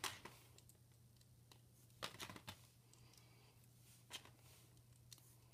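Faint clicks of plastic Lego Technic parts being handled and pins pressed into a connector: one at the start, a short cluster about two seconds in, and single clicks at about four and five seconds.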